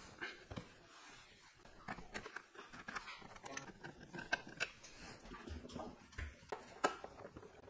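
Faint, irregular clicks and small scrapes of a screwdriver working the screws out of a plastic car center console, with the plastic trim being handled.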